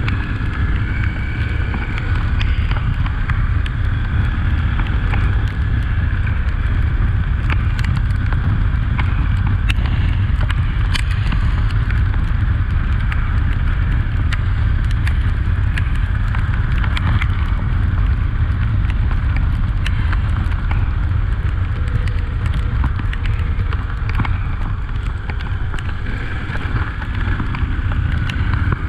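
Heavy wind buffeting the microphone on a moving Honda XRE 300 motorcycle, with its single-cylinder engine running beneath. Scattered sharp clicks throughout.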